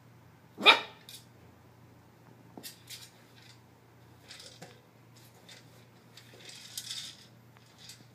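A small dog gives one short, loud bark about a second in. After it come scattered clicks and short rattles as the dog noses and pushes a treat-filled plastic Buster Food Cube across the carpet.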